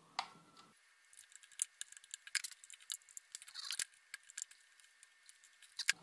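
Small metal clicks and light rattles, irregular and scattered, from a screwdriver undoing the screws that hold a rotary phone's dial and from the loosened dial being handled.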